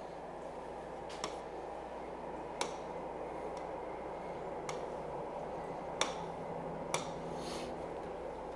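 Stylus tapping on a tablet surface: about six sharp, irregularly spaced clicks over a faint steady hum and hiss.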